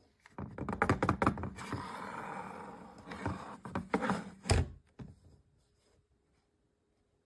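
Handling noise: a quick run of clicks and knocks, about a second and a half of rustling, more knocks, then one loud thunk about four and a half seconds in.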